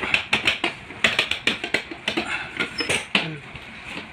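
Office chair's retractable footrest being worked by hand: a quick, irregular run of clicks, knocks and rattles from its sliding parts.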